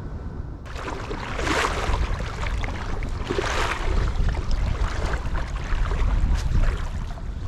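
Creek water swishing and splashing, with two louder swishes in the first few seconds, over a steady low rumble.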